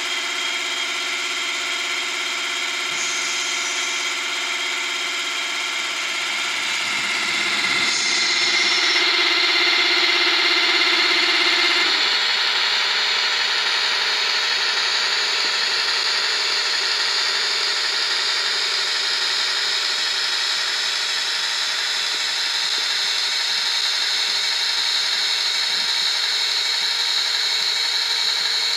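DCC sound decoder in a Bachmann Class 57 OO-gauge model locomotive, playing Class 57 diesel engine sound through its small on-board speaker as the model runs along the track. The engine sound grows louder about seven seconds in, then holds steady.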